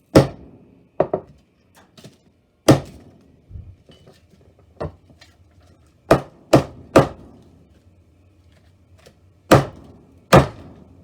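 Loud, sharp knocks and bangs at uneven intervals, about ten in all, with clusters of three around the middle and two near the end, as the phone is hammered back together.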